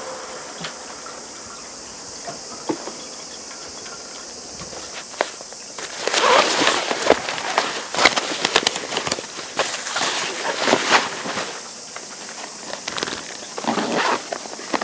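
Fabric pet carrier bag and its straps rustling and scraping with many light clicks, starting about six seconds in and coming in uneven spells. Before that, only a steady faint high hiss.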